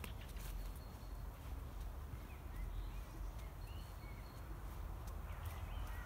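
Small woodland birds chirping in short notes, with a few thin, held whistles, over a low steady rumble. Irregular footsteps and clicks on a dirt forest path come through as a walker moves along.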